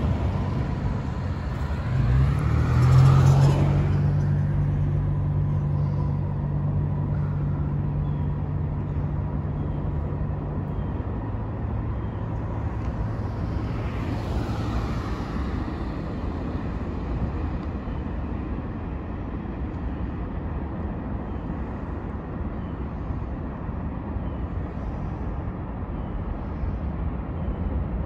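Road vehicles passing by: one about two seconds in, another fainter one about fourteen seconds in. A steady low engine hum runs for the first ten seconds or so.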